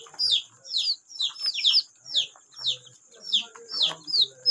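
Ducklings and chicks peeping: a steady stream of short, high calls that slide downward in pitch, about three a second, some overlapping from several birds.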